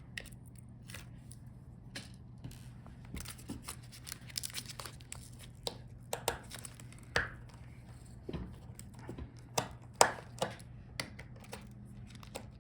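Scattered small clicks, taps and scrapes of hand tools and tiny screws on a laptop's chassis while screws are being removed, with the sharpest tap about ten seconds in. A steady low hum runs underneath.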